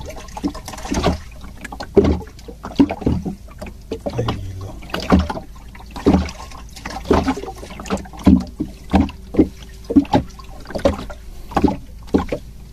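Small fishing boat at sea, with water slapping against the hull and irregular sharp knocks about once a second.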